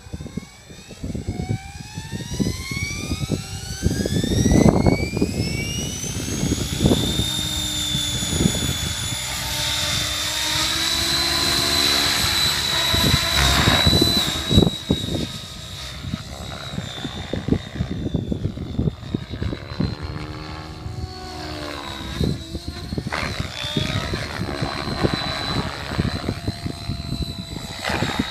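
Align T-REX 700E electric RC helicopter spooling up: a rising whine from the motor and gears climbs over the first seven seconds or so, then levels off into a steady high whine with rotor blade noise as it lifts off and flies. Later the pitch bends up and down as the helicopter passes by.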